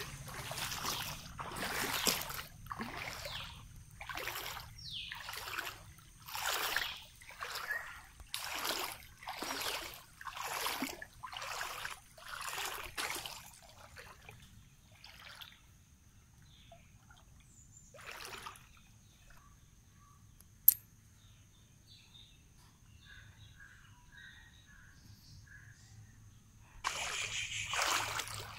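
Floodwater splashing and sloshing in a steady rhythm, about one splash a second, as something moves through it. About halfway through the splashing stops, leaving faint trickling and one sharp click, and it starts again near the end.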